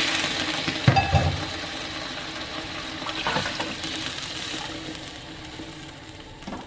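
Spice paste sizzling in a hot wok as water is poured in, the sizzle fading steadily as the water cools the pan. A knock about a second in.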